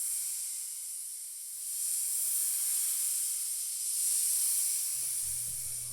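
A high hissing noise, swelling and easing in slow waves. A low steady hum comes in near the end.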